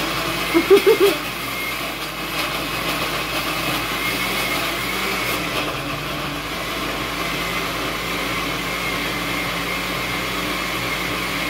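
Oster countertop blender motor running steadily at speed, pureeing tomatillos and green chiles into a smooth green salsa. A few short, louder pulses come about a second in.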